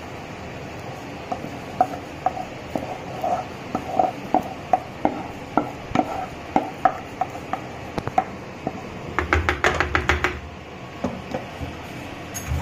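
Wooden spatula scraping and knocking against a metal kadhai and steel plate as thick mango pulp is pushed out of the pan: a string of short scrapes and knocks, then a denser clatter about nine to ten seconds in. A steady low hum runs underneath.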